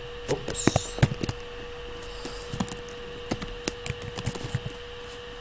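Computer keyboard typing: irregular keystroke clicks, a quick run of them in the first second or so and then scattered ones, over a steady low hum.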